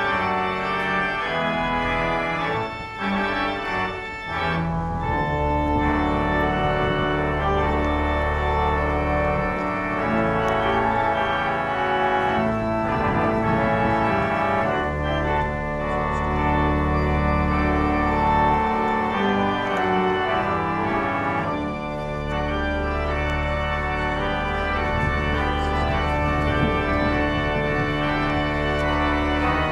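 Organ music: slow, held chords over long sustained deep bass notes.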